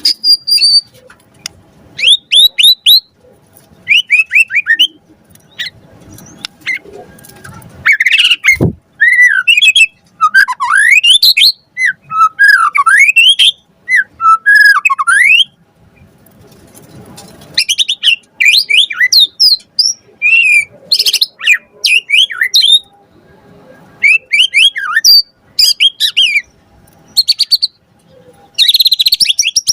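White-rumped shama (murai batu) singing in fast bursts of varied whistled phrases, with quick rising and falling notes and short pauses between bursts. It is a full, mimicry-rich song of the kind used as a lure to provoke other shamas into singing. About eight seconds in there is one quick downward sweep.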